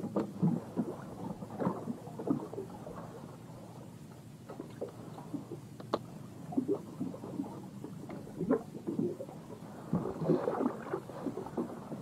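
Irregular low knocks and rustling of handling noise on a small wooden fishing boat, with water lapping at the hull and a few sharp clicks.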